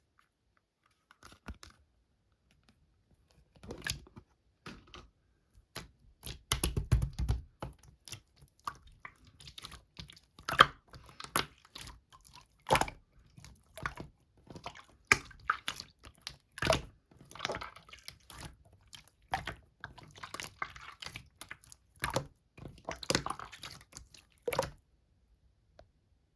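Slime being squeezed and stretched by hand, making irregular sticky clicks, pops and crackles.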